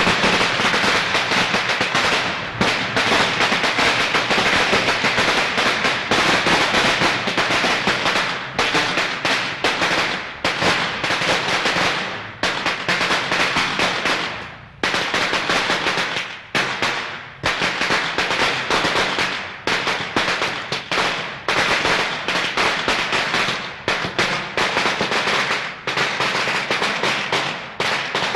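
Firecrackers going off in a fast, dense, continuous crackle of sharp bangs, broken by a few brief pauses.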